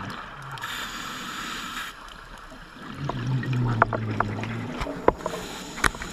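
A scuba diver breathing on an open-circuit regulator underwater: a hissing inhale about a second in, then a low, buzzing exhale of bubbles out of the regulator about three seconds in. Several sharp clicks come in the second half.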